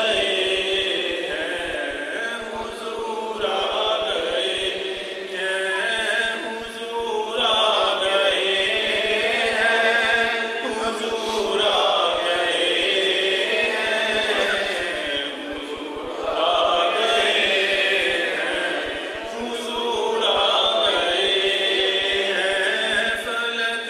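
A man singing an Urdu naat (devotional praise song) into a microphone, in long drawn-out, ornamented phrases of a few seconds each with short breaks for breath between them.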